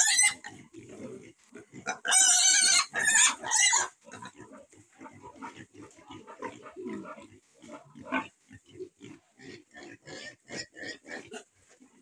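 Piglets squealing and grunting: loud, high squeals at the start and again for about two seconds from two seconds in while a piglet is held up by its front legs, then a steady run of short grunts from the group of piglets.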